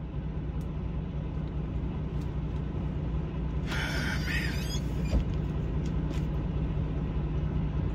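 International semi-truck's diesel engine idling, a steady low hum heard from inside the cab. A brief voice cuts in about four seconds in.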